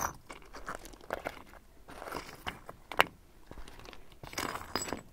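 Irregular crunches and clicks of loose pebbles and slag bits on stony ground, with one sharp click about three seconds in and a cluster of crunches near the end.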